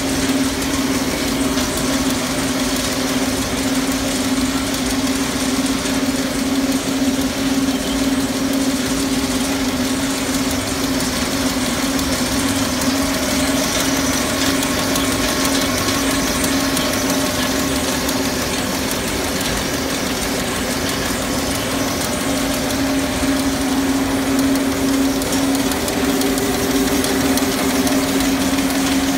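Chewy-candy wrapping machine with its rotating feed bowl running steadily: a constant mechanical hum with one strong low drone over a dense, even machine noise.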